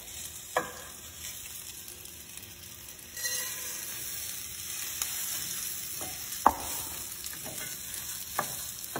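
Shallots sizzling in olive oil in a stainless steel frying pan, the sizzle growing louder about three seconds in as rice is poured in to toast. A wooden spoon stirs the rice, with three short knocks against the pan.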